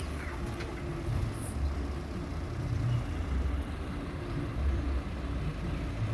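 Low, steady rumble of a heavy vehicle's engine running.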